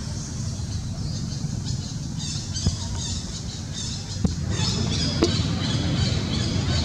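Rapid high-pitched animal squawking calls, repeated in short runs and strongest in the second half, over a steady low rumble.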